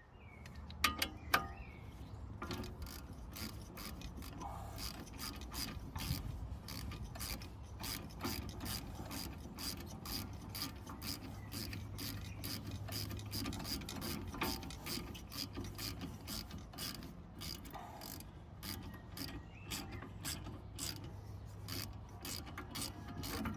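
Ratchet wrench clicking in runs of quick strokes as bolts are turned on the brake assembly.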